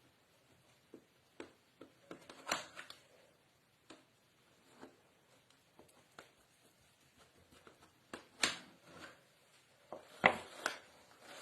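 Scattered light knocks, taps and scrapes of a knife and dishes handling cut pieces of cake, with a few sharper clinks about two and a half, eight and a half and ten seconds in.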